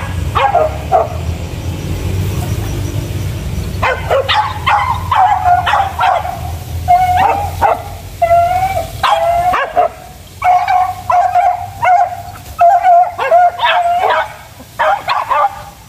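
Hunting dogs, beagles among them, baying on the chase: a long run of repeated high, drawn-out yelps that comes thick from about four seconds in. A low rumble sits under the first few seconds.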